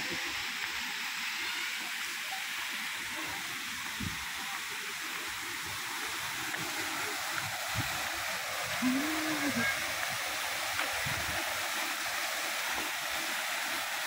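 Steady rushing of a waterfall pouring into a pool.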